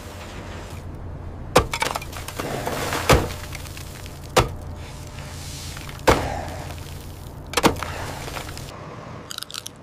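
Pickaxes striking a large block of ice: five blows about a second and a half apart, each a sharp cracking, breaking hit, over a steady low machine hum that stops shortly before the end.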